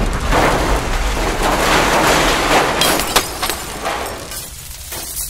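Explosion sound effect, a loud spread of blast noise with debris crashing down. A few sharp cracks come about three seconds in, then it dies away.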